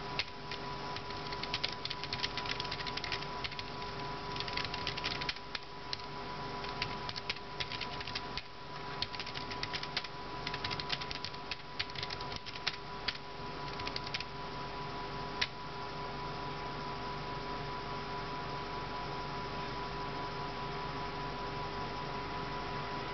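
Typing on an Elecom TK-FBP017BK Bluetooth keyboard: quick runs of key clicks for about fifteen seconds, then they stop. A steady electrical hum runs underneath and is all that remains afterwards.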